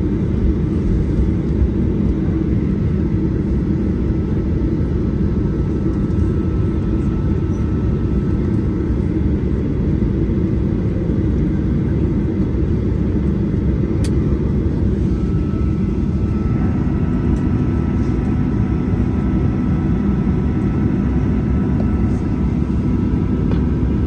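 Steady low rumble of a Boeing 737-800's CFM56 engines and airframe heard inside the cabin as the airliner taxis after landing. A faint thin steady whine rides on top and grows a little stronger in the second half.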